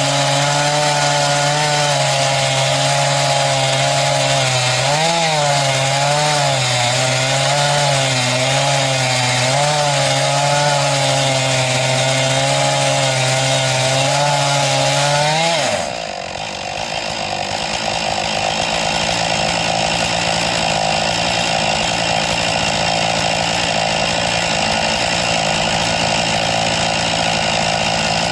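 Chainsaw on an Alaskan chainsaw mill running at full throttle, ripping through a cedar log, its pitch wavering slightly under the load of the cut. About sixteen seconds in the throttle is let off: the engine pitch falls sharply and it runs on steadily at a lower speed.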